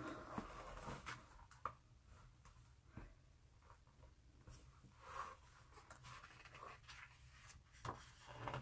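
Faint rustling of a hand handling the glossy pages of a large art book, with a few soft clicks.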